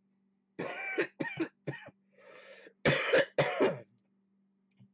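A man coughing in a fit: three coughs, a softer breath, then two louder coughs.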